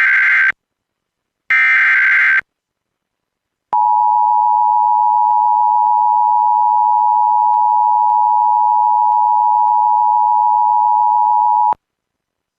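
Emergency Alert System signalling on weather radio: two short bursts of digital SAME header data about a second apart, then the long steady attention tone for about eight seconds, which cuts off sharply.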